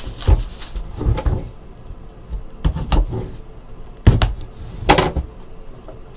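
A cardboard trading-card box being handled and opened on a table: a handful of separate knocks and scrapes of card against card and tabletop, the loudest two about four and five seconds in.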